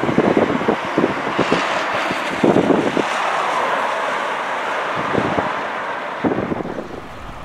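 Wind buffeting the microphone in uneven gusts, over a steady rushing background noise.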